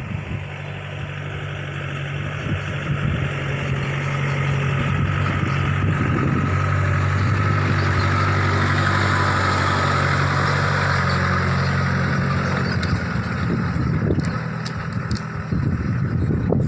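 A motor vehicle's engine running steadily, growing louder over the first several seconds and fading after about thirteen seconds, as it goes slowly by close to the microphone.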